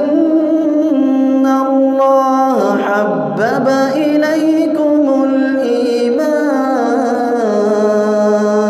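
A man reciting the Quran in a slow, melodic chant (tajweed), drawing out long held notes with gliding turns in pitch.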